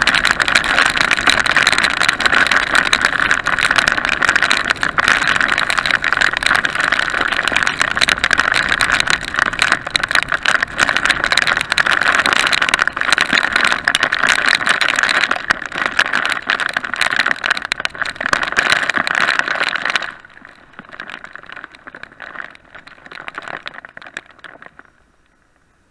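Wind and rain buffeting the microphone of a camera on a motorcycle riding at road speed in a heavy downpour. The noise drops sharply about 20 seconds in as the bike slows for a red light, then fades further.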